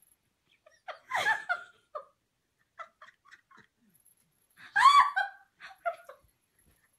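A person giggling in short broken bursts, once about a second in and again, louder, near five seconds.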